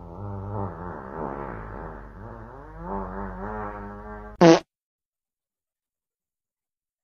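A long, drawn-out fart whose pitch wavers up and down. About four and a half seconds in it ends with a short, loud blurt, and then the sound cuts off suddenly.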